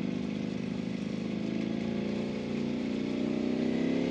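Ducati Panigale V4R's 998 cc V4 engine running in second gear at low revs, then rising in pitch as the bike accelerates about two and a half seconds in.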